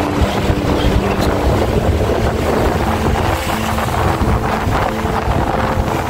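Wind buffeting the microphone over the steady rumble of a moving vehicle, with music faintly behind.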